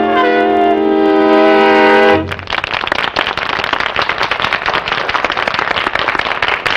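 Big-band orchestra and male singer holding the song's final chord, cut off cleanly about two seconds in; then a studio audience applauding.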